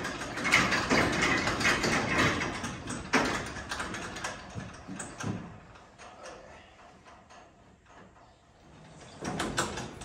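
Knocks, clanks and rattles of someone climbing the steel access ladder of a John Deere combine, with one sharper knock about three seconds in; it goes quiet in the middle, and the clatter starts again shortly before the end.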